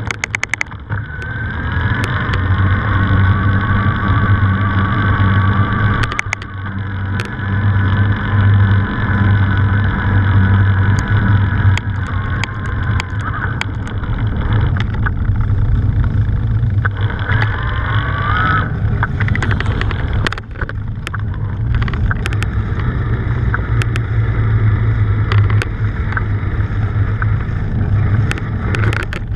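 Mountain bike rolling fast along a tarmac road, with wind rumbling over the handlebar camera's microphone. A whine that shifts in pitch comes and goes, with scattered clicks and rattles from bumps.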